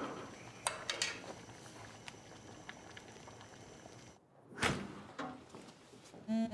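Soft clicks and knocks of small objects handled in a kitchen, then after a brief hush a thunk and footsteps, ending with a short buzz like a phone vibrating.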